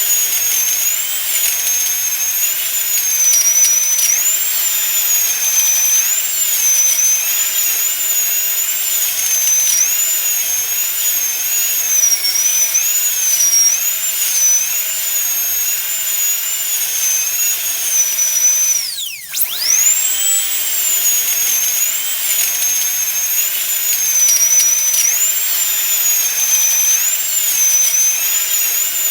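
A piercing, high-pitched whine that wobbles up and down in pitch about once a second. About two-thirds of the way through, it dives steeply in pitch and sweeps back up.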